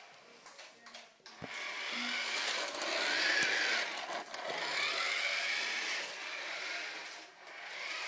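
Electric motor of a radio-controlled toy car whirring as the car is driven, starting after a quiet second or so and then swelling and dropping in several surges as it speeds up and slows.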